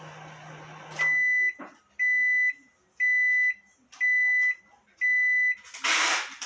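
Lotte flat-bed microwave oven running with a steady hum that stops about a second in as cooking ends. Then five end-of-cycle beeps at one pitch, each about half a second long and spaced a second apart. A loud noisy clatter follows near the end.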